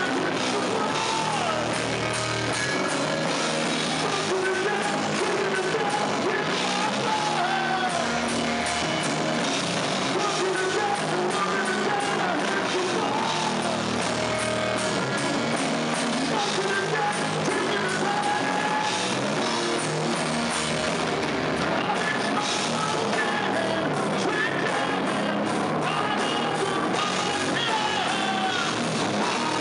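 Live heavy rock band playing: electric guitar and drum kit with crashing cymbals, and a male vocalist singing over it.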